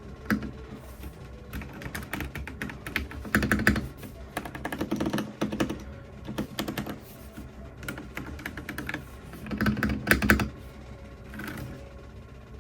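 Typing on a computer keyboard: several bursts of rapid keystroke clicks with short pauses between them.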